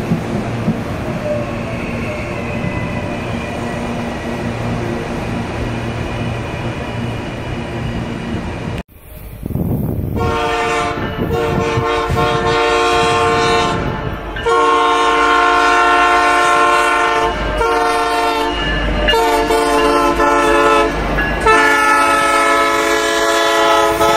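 CPTM Series 8500 electric multiple unit (CAF-built) moving at a station platform: a steady rumble with a faint high whine. It cuts off suddenly about nine seconds in, and from about ten seconds a multi-tone train horn sounds a series of about seven long blasts, each one to three seconds.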